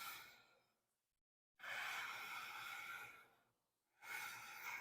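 Sandpaper on a plate-glass block rubbed across the cast-iron deck of a Ford 302 V8 block: a dry scratching hiss in two strokes, each a second or so long, about two seconds apart. The sanding is a flatness check, meant to put scratches over the whole head mating surface.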